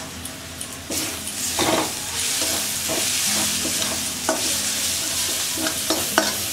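Ground spices and chopped onion sizzling in hot oil in a kadai as a metal spatula stirs and scrapes them, with a few sharp knocks of the spatula on the pan. The sizzle swells about a second in and is fuller from about two seconds on, as the spice powders are fried into a masala.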